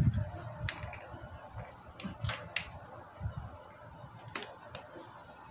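Irregular light metal clicks and taps of a hand screwdriver and screws against a door closer body and the aluminium door-frame header as the closer is fitted, about five clicks spread over several seconds.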